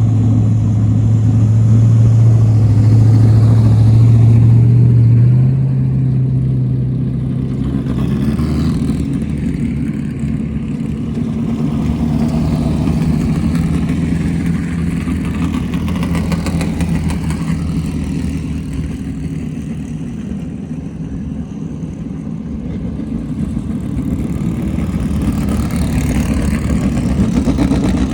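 Engine of a Class 1600 off-road race car, an air-cooled Volkswagen-based 1600 cc motor, running steadily. It steps up in pitch about five seconds in, then dips a little before building again near the end.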